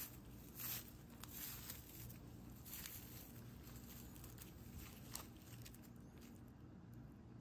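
Faint rustling and scraping of raffia yarn drawn through crocheted raffia stitches with a tapestry needle while whipstitching two bag panels together, with a few brief louder scrapes in the first half. A faint steady low hum lies underneath.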